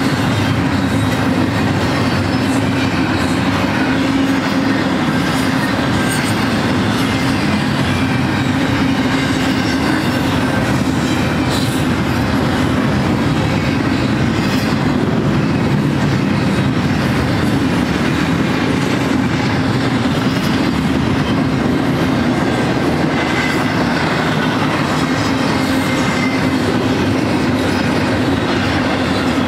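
Steady rumble and clatter of a passing double-stack intermodal freight train's steel wheels on the rails, as a long string of container-laden well cars and then trailer-carrying cars roll by.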